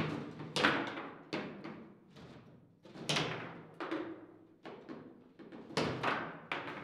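Table football in play: irregular sharp clacks and knocks of the ball struck by the plastic players and of the rods and men hitting the table, with a few much louder hits among them.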